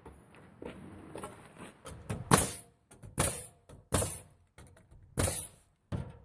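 Four sharp strikes about a second apart, starting about two seconds in: nails being driven into fiber-cement siding, with quieter handling noise before them.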